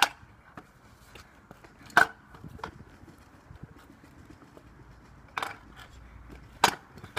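Kick scooter clacking on pavement: several sharp, separate knocks of the deck and wheels hitting the ground as it is hopped and turned, the loudest about two seconds in and again near the end.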